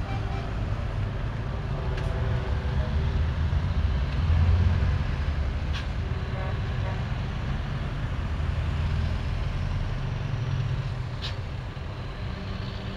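Heavy trucks' diesel engines rumbling as they drive past one after another. The rumble swells to its loudest about four to five seconds in, then eases as they pull away.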